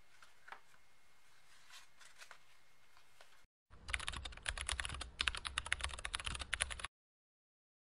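Rapid computer keyboard typing: a dense run of quick key clicks lasting about three seconds, starting about halfway through and cutting off suddenly. Before it, a few soft taps of a cardboard box and paper being handled.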